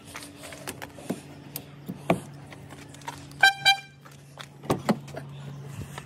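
A car alarm gives two quick short beeps as the car is unlocked with its remote key, about halfway through. About a second later come two loud clunks as the driver's door latch releases and the door swings open. Scattered footsteps come before the beeps, over a low steady hum.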